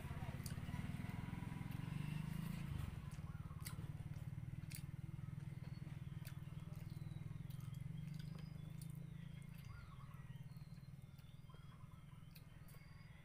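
A steady low mechanical hum, fading gradually over the last few seconds, with scattered faint clicks of eating by hand and, from about four seconds in, faint high chirps.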